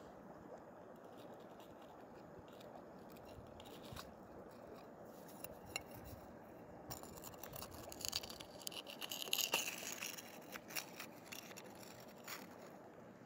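A metal spoon scraping and clinking against rock and gravel as material is dug out of a bedrock crevice. The scrapes come thicker and louder from about the middle on, over a steady rush of water.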